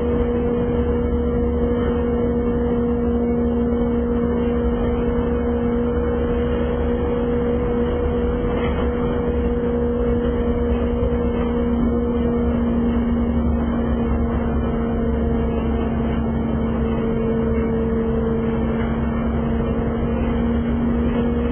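City transit bus driving at a steady speed, heard inside the cabin: a constant engine and drivetrain hum over low road rumble.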